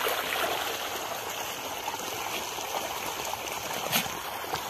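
Water running steadily into a small concrete tub and churning its surface, with one sharp knock about four seconds in.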